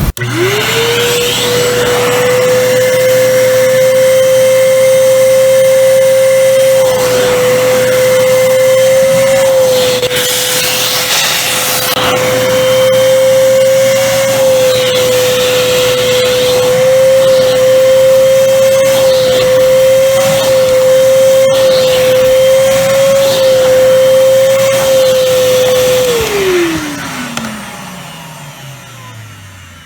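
Oreck XL corded handheld vacuum cleaner switched on, its motor whine rising quickly to speed and running steadily, with brief surges of hiss, then switched off near the end, the whine falling in pitch as the motor spins down.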